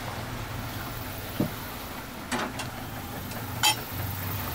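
Stainless steel kettles clinking and knocking against each other and the galley stove as they are handled, a few separate clinks, the loudest a ringing metallic one about three and a half seconds in, over a steady background rumble.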